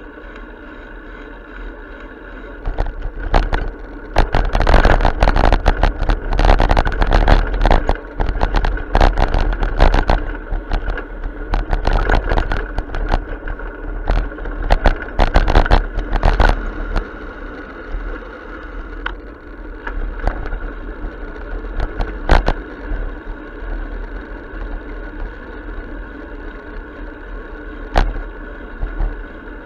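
Wind noise and road rumble on a bicycle-mounted action camera's microphone while riding. From about three to seventeen seconds in there is a run of rattling knocks as the bike crosses rough pavement. A couple of single sharp knocks come later.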